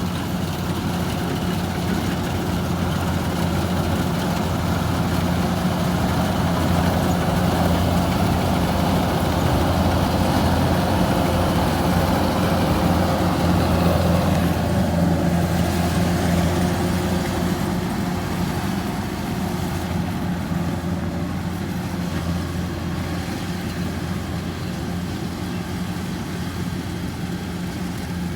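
Heavy farm machine's engine running steadily, a constant low hum. It grows louder for a while around the middle, then eases off toward the end.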